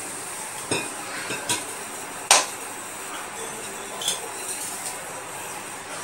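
Stainless steel kitchenware clinking as it is handled: a few separate metallic clinks, the loudest about two seconds in, over a steady hiss.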